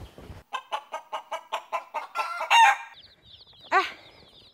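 Chickens clucking in a quick run of calls, then from about three seconds in a rapid stream of high, thin peeps from a box of Kenbro chicks, with one more cluck near the end.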